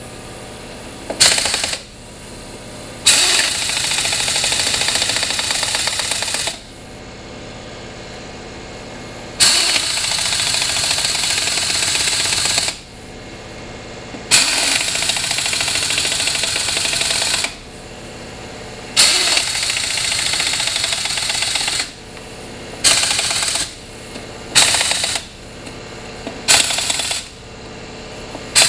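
Impact wrench running in four stretches of about three seconds each, then three short bursts near the end, each starting with a sharp hit.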